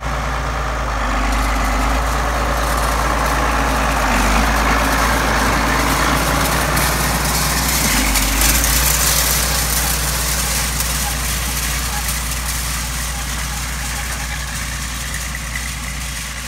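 Farm tractor's diesel engine running steadily, a little louder around the middle and easing slightly near the end.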